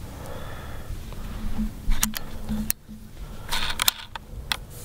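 Handling noise: a few sharp clicks about two seconds in, then a quick cluster of clicks and rustles near the end, over faint outdoor background.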